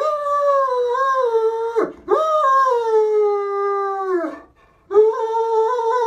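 Great Dane howling in long drawn-out howls, each rising at the start, holding and dropping away at the end. One howl ends about two seconds in, a second lasts a little over two seconds, and a third starts near the end.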